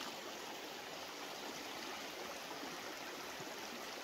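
Mountain spring water running in a steady, even rush.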